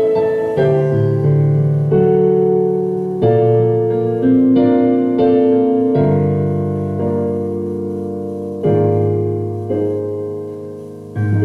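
Piano playing a slow series of chords, each struck and left to ring and fade, the chords coming further apart towards the end.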